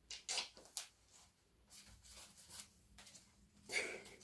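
Clear plastic gift wrapping crinkling and rustling in short irregular bursts as hands work at the ribbon tied round it, with a louder rustle near the end.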